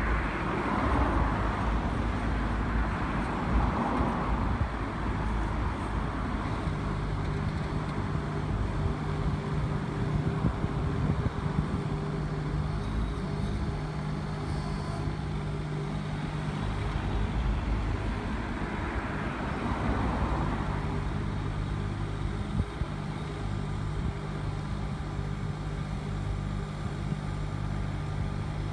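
Hanix H17D mini excavator's diesel engine running steadily while the machine digs and lifts soil. There are two spells of louder rushing noise, one near the start and one about two-thirds of the way through.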